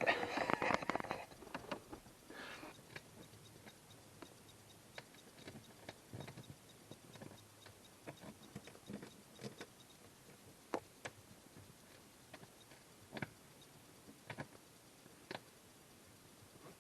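A short burst of clattering and rattling right at the start, then scattered light clicks and taps of hand work on parts: tools and fittings being handled while a vehicle seat base is changed.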